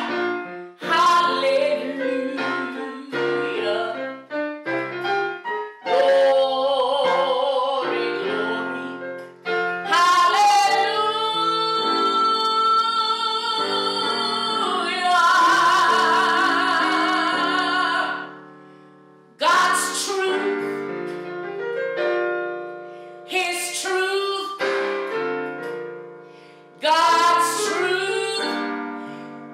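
A woman singing a solo in a full, operatic-style voice over piano accompaniment, with long held notes and two short breaths between phrases.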